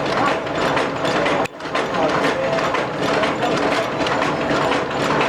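Cardboard box partition-making machine running, a fast, steady mechanical clatter of rapid repeated clicks. The sound drops out sharply for a moment about a second and a half in, then picks straight back up.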